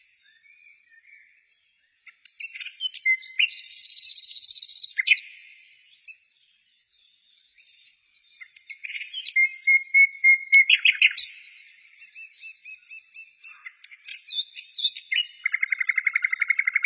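Birdsong: high-pitched chirps, whistled notes and rapid trills in several phrases with short gaps, ending in a fast trill near the end.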